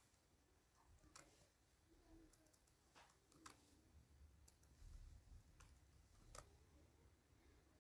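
A handful of faint, scattered clicks from a computer keyboard and mouse over near silence.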